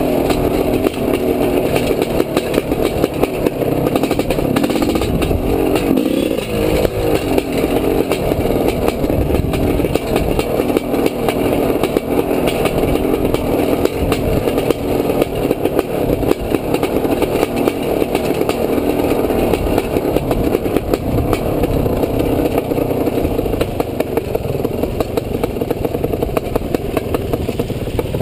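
Dirt bike engine running as the bike rides down a rocky track, with continuous rattling and clatter from the bike over the stones. The engine note dips and glides briefly about six seconds in, and the level drops suddenly at the very end as the bike slows to a stop.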